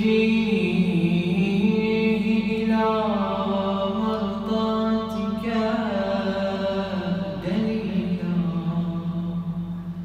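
A man's solo voice chanting an Arabic supplication (dua) in a slow, melodic recitation style, holding long drawn-out notes that glide between pitches.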